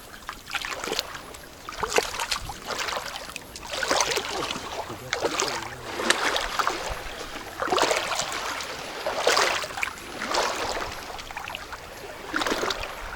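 Shallow sea water sloshing and lapping in repeated swishes every second or two.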